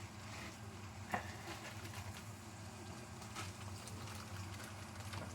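Stovetop cooking sounds: a low steady hum under faint crackling, with a light tap about a second in, as sausage meat cooks in a hot oiled pan.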